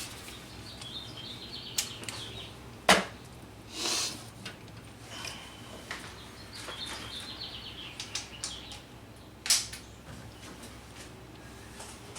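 Socket ratchet clicking in short runs as bolts are turned, with scattered clicks and two louder sharp knocks, about three seconds in and again past nine seconds.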